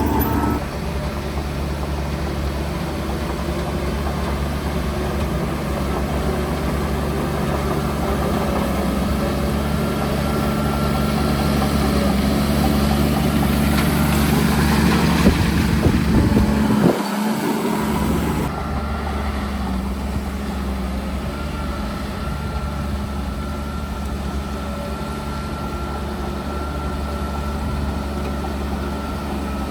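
Heavy construction-vehicle engine running steadily. A noisier, louder stretch builds a little past halfway, then the sound changes abruptly.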